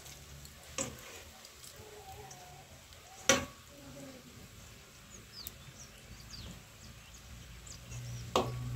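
Mandazi dough frying in hot oil in a pan over a wood fire, a faint sizzle, with a few sharp clinks of a metal slotted spoon against the pan, the loudest about three seconds in.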